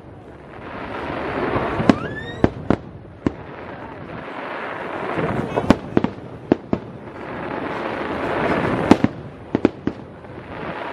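Aerial fireworks shells bursting overhead: a dozen sharp bangs scattered through, over three swelling waves of crackling hiss about two, five and eight seconds in. A rising whistle climbs about two seconds in.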